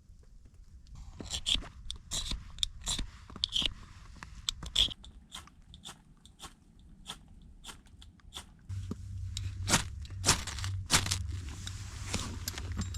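Ferrocerium rod scraped hard with a steel striker, a series of short, sharp scrapes struck in irregular bursts to throw sparks onto tinder. A low rumble comes in about nine seconds in.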